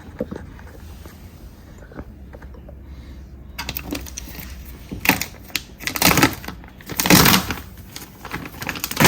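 Plastic sheet on the inside of a car door being peeled back by hand, crinkling and crackling in irregular bursts from about three and a half seconds in.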